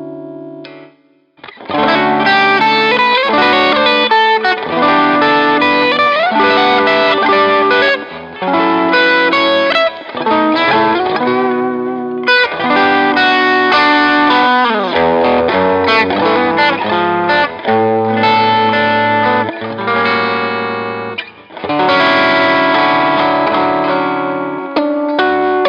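Fender Custom Shop 1961 Stratocaster electric guitar played with light overdrive and effects over a backing track. A chord rings out and fades, then after a short pause come busy lead lines with slides in pitch and short breaks between phrases.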